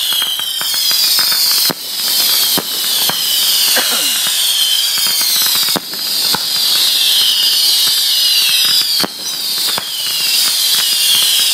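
Fireworks going off close by: a constant high-pitched whistling hiss over many sharp bangs and crackles. Three times the noise drops briefly and then builds back up.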